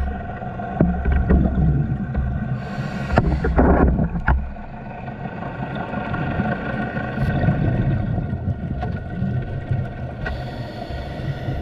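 Underwater sound on a scuba dive: the steady drone of boat engines carrying through the water, heard as several constant tones over a low rumble. A diver's regulator exhalations bubble past in noisy bursts, about three seconds in and again near the end.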